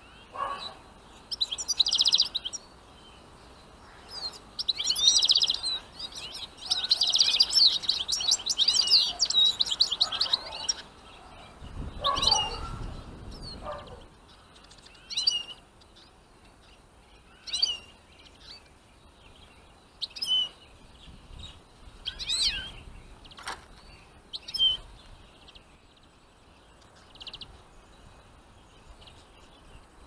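European goldfinches and Eurasian siskins twittering at a trap cage. There are long bursts of rapid, high song in the first ten seconds, then short single calls every couple of seconds, with a lower call about twelve seconds in.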